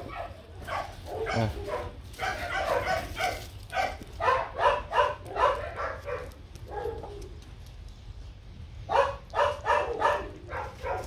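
A H'Mong bobtail dog makes short, quickly repeated vocal sounds in several bouts while its mouth is held open.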